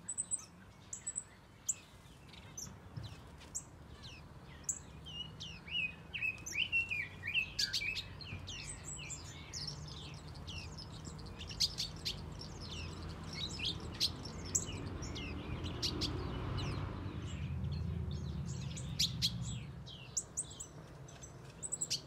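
Many small finches and softbills in an aviary chirping and calling together, lots of short high chirps overlapping, busiest in the middle. Underneath, a low rumble swells up and then eases off near the end.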